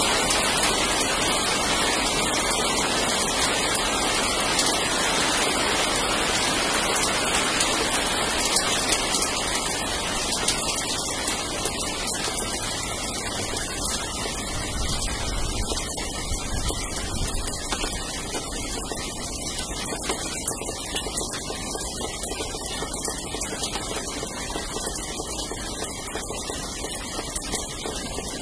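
Steady rain falling on roofs and ground, with many small drops ticking close by; it slowly grows quieter.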